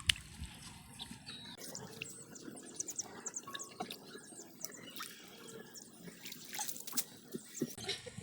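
Light water drips and small splashes, a scattered run of short plinks and clicks, with one sharper tick at the very start.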